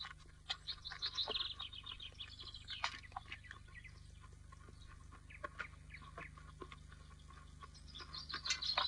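Birds chirping and twittering faintly, with livelier runs of quick notes about a second in and again near the end, over a steady low hum.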